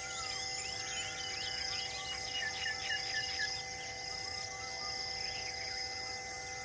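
Wild birds chirping and calling, with a quick run of about five notes in the middle, over a steady high insect drone that comes and goes.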